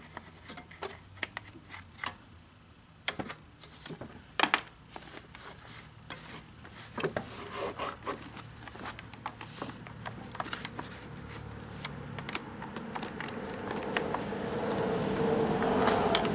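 Toothbrush scrubbing caked mud and debris out from under a chainsaw, with scattered clicks and knocks of plastic and metal. The scrubbing grows steadier and louder over the last few seconds.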